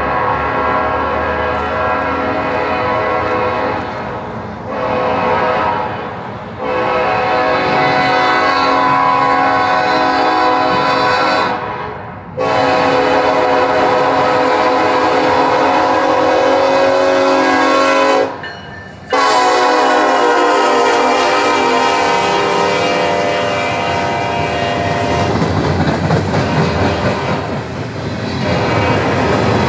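Locomotive air horn on a Union Pacific engine leading a freight train, sounding four long blasts as it approaches. The pitch drops on the last blast as the locomotive passes. After that, freight cars rumble and clatter by on the rails.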